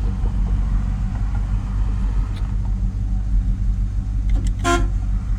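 1966 Oldsmobile Delta 88's 425 Rocket V8 idling steadily, running on 31-year-old gas. Near the end the car's horn gives a brief toot.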